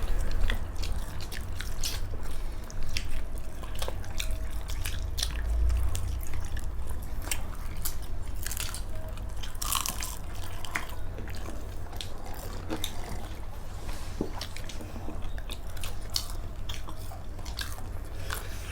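Close-up eating sounds: wet chewing and mouth sounds, with many short, sharp clicks scattered throughout over a steady low rumble.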